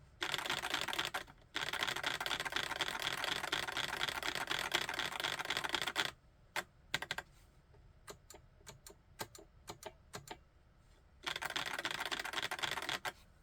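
Typing on a YUNZII QL75 typewriter-style mechanical keyboard with Cocoa Cream V2 switches: fast, dense runs of keystrokes, a slower stretch of separate single key presses in the middle, then another fast run near the end.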